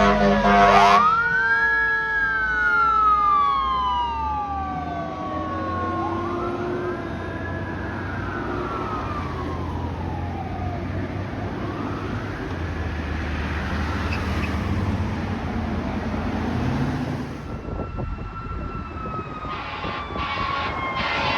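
A fire engine's air horn blast cuts off about a second in, then its siren wails in slow rising-and-falling sweeps over a steady low engine rumble. The siren fades out about three-quarters of the way through.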